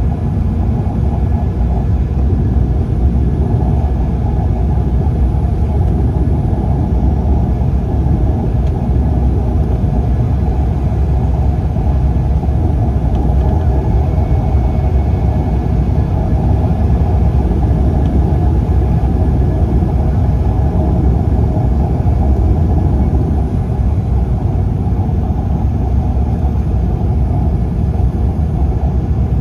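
Airliner cabin noise on approach: a steady, unbroken rumble of engines and airflow, heaviest in the low range.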